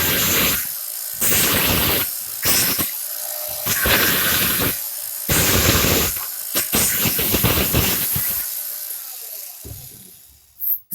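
A high-speed power tool cutting off the protruding end of a long plumbing screw driven into the floor: repeated bursts of harsh cutting noise, each about a second long with short gaps between, then the sound fades away over the last two seconds.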